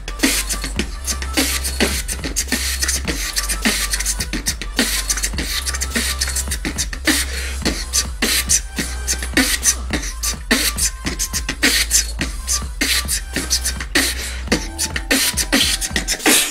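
Beatboxing with a hand cupped over a close microphone: rapid drum-like kicks, snares and hissing hi-hats, with a steady low bass hum underneath that drops out briefly about halfway through.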